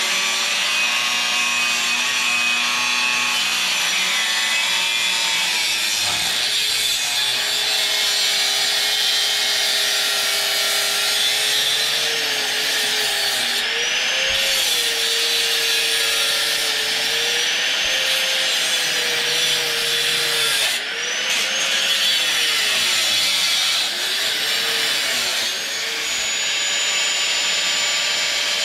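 Angle grinder cutting through the old mild-steel exhaust pipe, a steady high grinding hiss. Through the second half its motor pitch repeatedly sags and recovers as the wheel is pressed into the cut and eased off.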